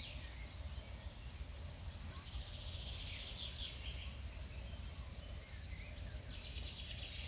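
Pond ambience: bursts of fast rattling, trilled animal calls, three times, over a steady low rumble.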